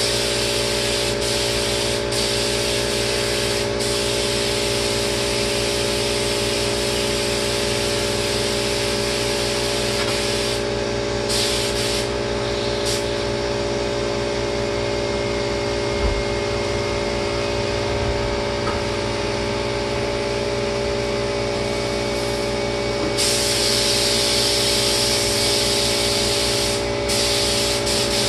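Paint spray gun hissing as lacquer is sprayed in long passes, with a steady machine hum underneath. The spray pauses briefly about a third of the way in and again near the end, and runs louder for a few seconds before the last pause.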